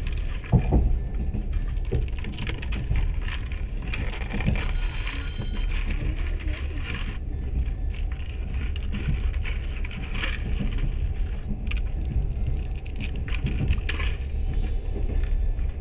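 Train carriage running along the track, heard from inside: a steady low rumble with irregular clicks and rattles. A short rising high-pitched whine comes near the end.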